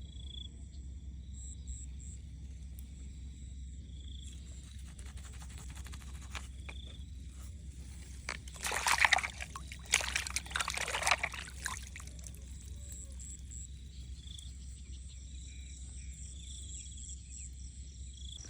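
Water sloshing and splashing in two loud bursts about halfway through, over a steady low rumble, with faint short high chirps scattered throughout.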